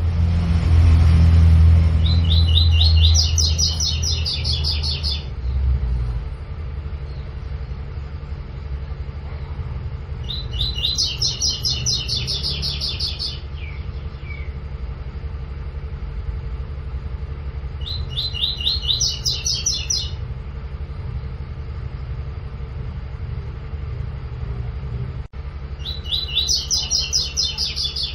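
Double-collared seedeater (coleiro) singing a tui-tui type song: four phrases about eight seconds apart, each a quick string of high, clear notes lasting about three seconds. A steady low rumble runs underneath.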